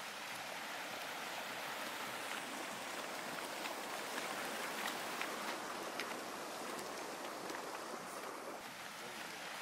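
A steady outdoor rushing hiss, like running water, with a few faint ticks scattered through it.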